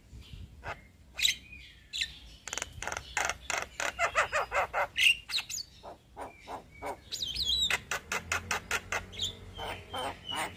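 Male Javan myna singing a long, rolling song: rapid runs of harsh notes, about six to eight a second, broken by whistled glides.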